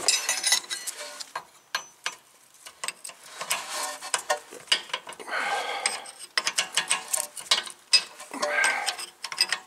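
Steel wrenches clinking and clicking against the rear brake caliper and its lower bolt on a 2014 Toyota Corolla S as the bolt is loosened. A 17 mm wrench holds the slide pin still while the bolt is turned. Irregular metallic clicks sound throughout, with two denser rattling spells about halfway through and near the end.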